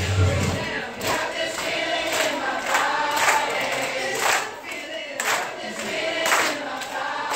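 Children's choir singing together. A bass-heavy backing track stops about a second in, leaving mostly the voices.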